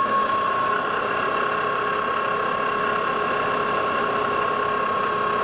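Metal lathe's drive running steadily, a constant gear whine over mechanical noise with no change in speed.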